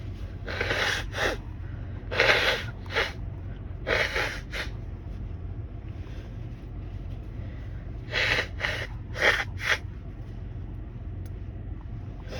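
A person blowing a nose stuffed up with a cold: three hard blows, each with a short second puff, then after a pause a quicker run of four blows near the end.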